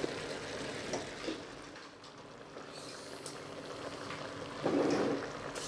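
Leek rounds sautéing in a pot with meat, onion and tomato: a steady soft sizzle, with a couple of faint clicks about a second in and a louder stretch of noise near the end.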